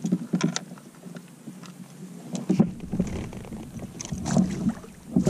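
Scattered light knocks and clicks of a fish lip gripper and fishing gear being handled on a plastic sit-on-top kayak. A low rumble comes in about two and a half seconds in.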